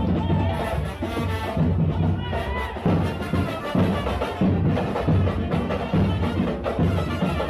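Carnival street percussion band playing live: drums keep a steady, regular beat with lighter, sharper percussion over it.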